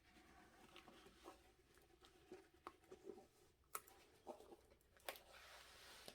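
Faint rustling and crackling of a large rolled diamond-painting canvas being handled and unrolled, with two sharper crackles near four and five seconds in.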